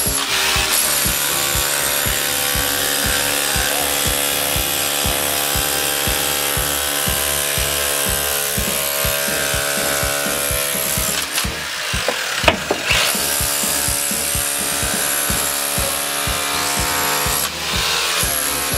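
Battery-powered drill boring into brick and mortar: a steady motor whine with rapid knocking, letting off briefly twice.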